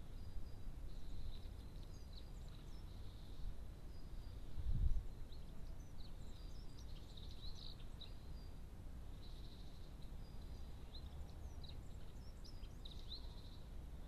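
Birds chirping and singing in the background, short high notes and phrases scattered throughout, over a low steady rumble of outdoor noise. A brief low rumble swells and fades about five seconds in.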